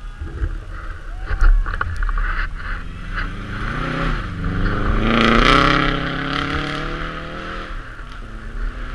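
Rally car engine revving as the car approaches and passes, its pitch dipping briefly about four seconds in, then climbing. It is loudest, with a burst of hiss, about five and a half seconds in, then fades away.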